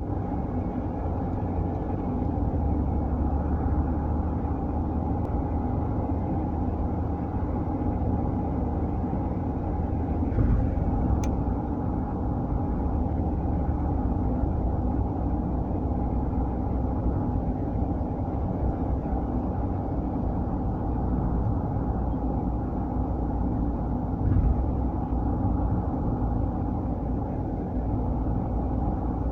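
Steady low rumble of a 2017 Nissan Livina on the move, recorded for an abnormal noise that the owner writes as "dia… dia…". Two brief louder bumps come about ten and twenty-four seconds in.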